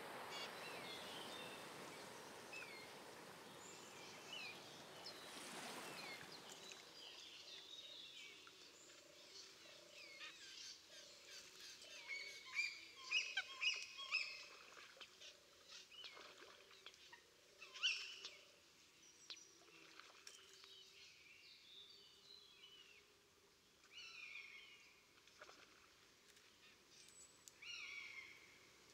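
Faint outdoor ambience of several birds chirping and calling in short, repeated, often downward-gliding notes, with a few louder sharp clicks near the middle. A soft rushing noise underneath fades out about six seconds in.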